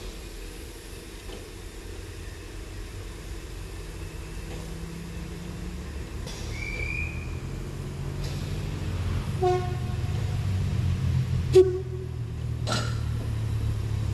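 Harz narrow-gauge steam locomotive working at a standstill, a low rumble that swells steadily louder through the second half. Brief pitched sounds and a couple of sharp knocks come near the end.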